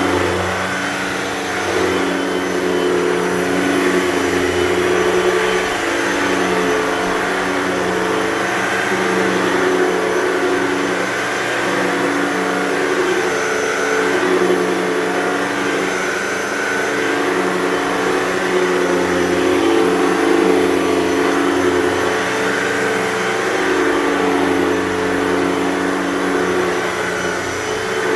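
Hoover Total Home Pet bagless upright vacuum running on carpet, its motor a steady whine whose pitch dips and recovers every few seconds.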